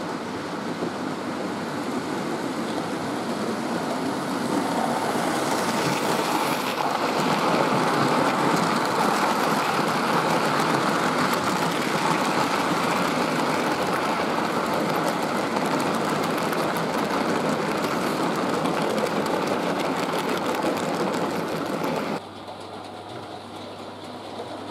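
Model railway goods train running on the track, its wheels clattering over the rail joints. It grows louder over the first several seconds as the long rake of vans passes close, then drops suddenly to a quieter rolling sound about 22 seconds in.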